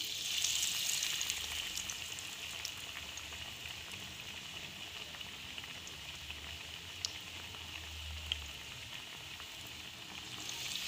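Besan-battered bread pakora deep-frying in hot oil: a steady sizzling hiss with a few sharp spatter pops, swelling again near the end as another slice goes in.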